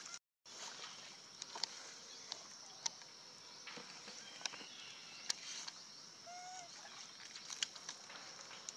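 Steady high-pitched insect drone, with a handful of sharp clicks scattered through and a short chirp a little past the middle.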